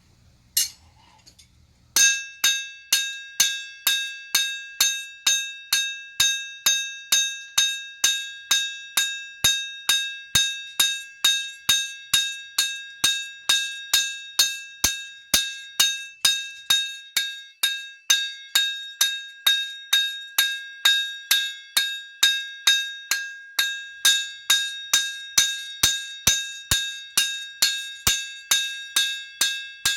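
Hand hammer cold-forging a bar of Zapp tool steel on an anvil: steady blows at about two and a half a second, starting about two seconds in, each leaving a high metallic ring that carries on between strikes.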